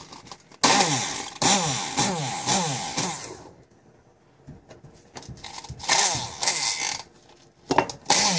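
Handheld stick blender grinding snack crackers in a plastic cup, run in three bursts: a long one of nearly three seconds near the start and two shorter ones later, its motor whine sliding in pitch as the load changes.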